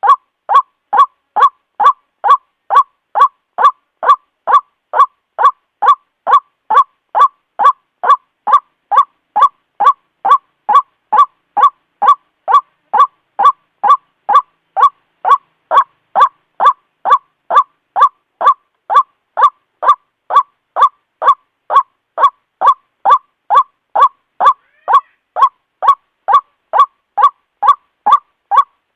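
White-breasted waterhen calling: a loud, short croaking 'ruak' note repeated evenly about twice a second. It is a lure call for attracting waterhens.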